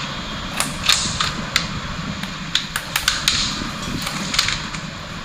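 Plastic snap clips of a laptop's bottom cover popping loose one after another as a pry tool levers the cover off, a series of irregular sharp clicks and cracks.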